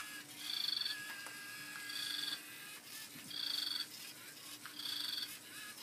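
A high, trilled chirp repeating evenly about every one and a half seconds, over a faint steady hum.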